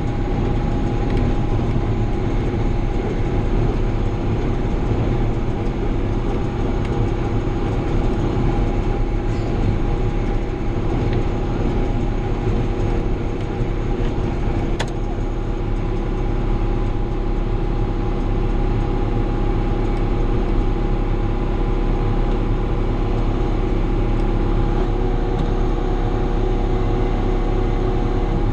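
John Deere 7000-series tractor running steadily at PTO speed, driving a square baler with a bale thrower: one unbroken mechanical drone of engine and baler, with a single sharp click about halfway through.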